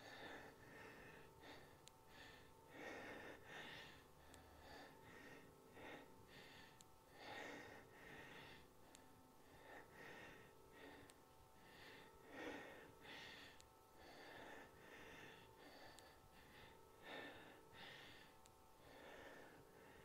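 Faint, hard breathing of a woman exerting herself through dumbbell deadlifts: short breaths in and out about once a second, over a faint steady hum.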